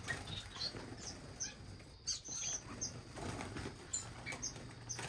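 Pet finches in a bird room fluttering their wings and giving many short, high chirps, scattered and overlapping.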